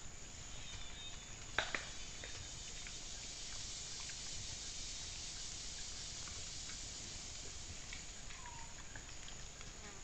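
Insects buzzing, a steady high hum that swells about two seconds in and then holds. Two sharp clicks come about one and a half seconds in, with scattered faint ticks.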